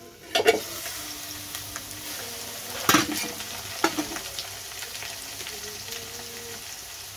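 Potatoes sizzling steadily in hot oil in an aluminium kadai, with a few sharp metal clanks as the lid is taken off and a metal spatula knocks against the pan.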